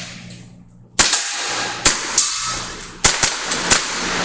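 Airsoft pistol firing a string of about six sharp shots: one about a second in, another shortly after, then a fast cluster of four after three seconds.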